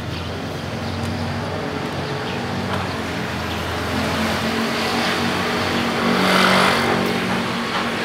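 A motor vehicle's engine runs steadily, swelling to a peak about six and a half seconds in, then easing off, as if it passes nearby.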